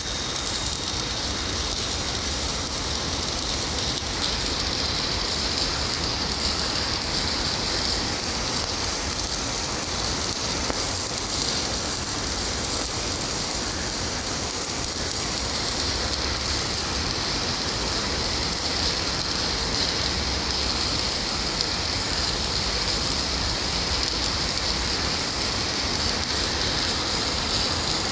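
Stick (SMAW) arc welding on a 12-inch carbon steel pipe: the covered electrode's arc burns with a steady, unbroken crackling hiss.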